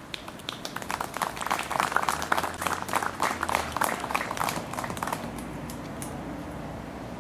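A small group applauding by hand for about five seconds, then the clapping dies away.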